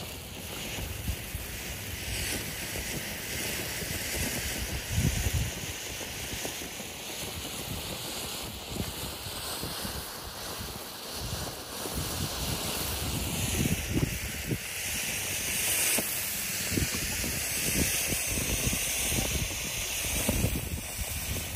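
Ground fountain firework (a 113 g 'Re della foresta' fountain) burning with a steady hiss, with crackling pops that thicken through the second half.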